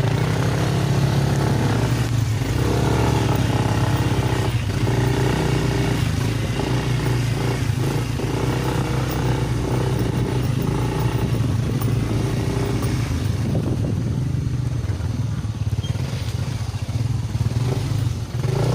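Motorcycle engine running steadily while riding, with a few knocks and rattles in the first half.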